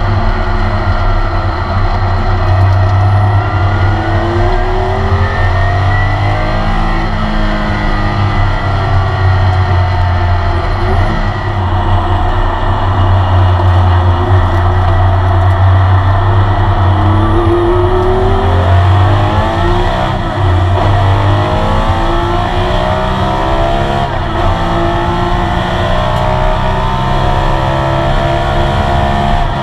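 In-car sound of a classic Porsche 911 RSR's air-cooled flat-six at racing speed, the revs climbing and dropping back several times through gear changes and braking, over steady road and wind noise in the stripped cabin.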